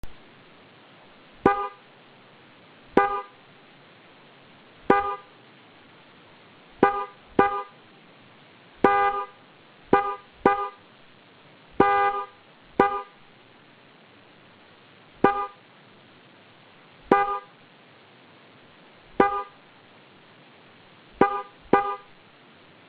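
CLIMA Mini European III car horn sounding in short honks, about fifteen of them, some in quick pairs and a few held a little longer.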